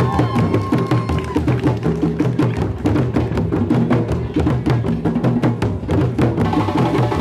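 A group of djembes and larger barrel drums played together in a drum circle, struck with hands and sticks in a steady, fast, dense rhythm.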